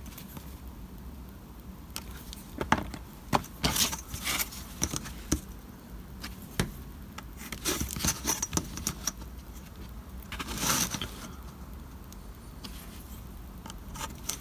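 A steel ruler and card strips being handled and set down on a cutting mat: a run of light clicks and taps, then a brief scrape.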